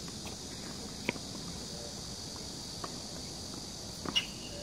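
Tennis rally on an outdoor hard court: sharp knocks of the ball off racket and court, one about a second in, a faint one near the middle, and two in quick succession near the end as the near player strikes a forehand. A steady high insect drone runs underneath.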